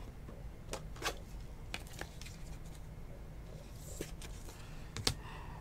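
Faint handling of trading cards and plastic card holders: a few scattered light clicks and rustles, over a steady low room hum.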